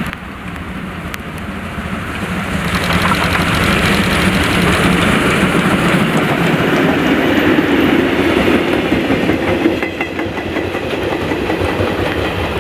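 Class 50 steam locomotive 50 3648 with two gas tank wagons passing close by: its sound builds from about two seconds in, is loudest in the middle, and eases near the end with wheels clicking over the rail joints.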